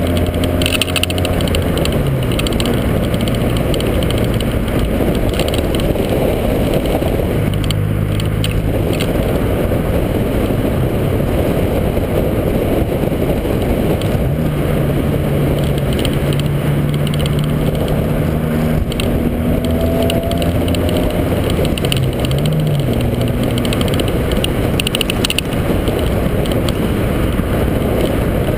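Honda Civic driving along a street, heard from a camera mounted outside on its front fender: a constant rumble of wind and road noise on the microphone, with the engine's hum underneath that holds steady and shifts pitch a few times as the revs change.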